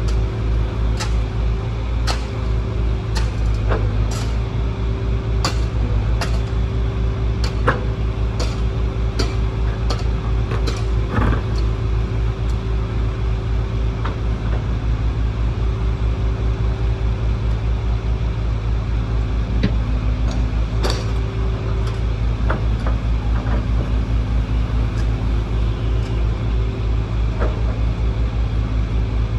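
Excavator's diesel engine running steadily, with a higher hum that comes and goes and scattered sharp clicks and knocks.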